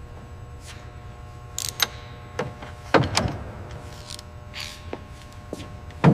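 A steady low hum with a series of sharp knocks and clunks over it, the loudest about three seconds in and near the end.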